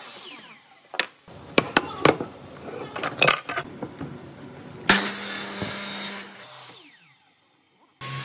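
Makita miter saw motor spinning down, then several sharp wooden knocks as the board is shifted against the fence. About five seconds in the saw starts again, runs for a second or so and winds down.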